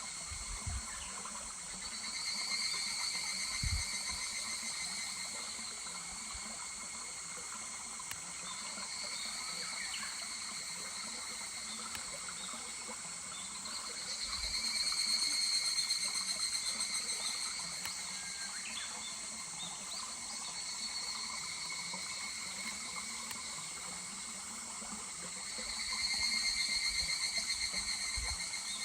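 Higurashi (evening cicadas, Tanna japonensis) calling in about five bouts of rapid, pulsing trills, each rising and fading over a few seconds, over the steady rush of a small mountain stream.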